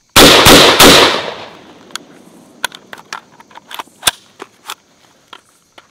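Rifle fired three times in quick succession, about a third of a second apart, very loud with a tail that dies away over about a second. Scattered light clicks and taps follow.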